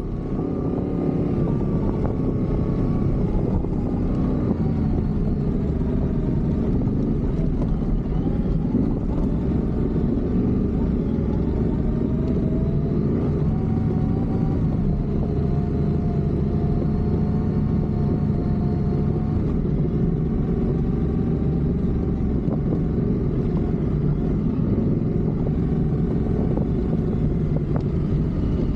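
Yamaha Ténéré 700 motorcycle's parallel-twin engine running on the move, a steady engine note that rises and falls slightly.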